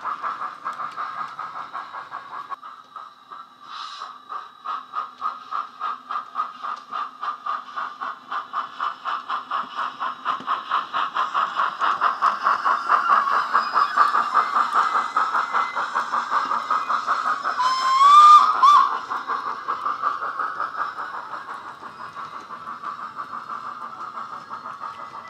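Sound decoder in a Hornby K1 model steam locomotive, playing steam exhaust chuffs in a steady rhythm through the small speaker in its tender. About 18 s in, a short rising whistle blast is the loudest sound.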